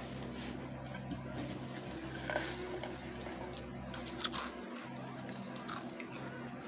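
Lay's Stax truffle potato crisps being bitten and chewed, with sharp crunches about two and four seconds in. Underneath is a low steady hum that stops about two-thirds of the way through.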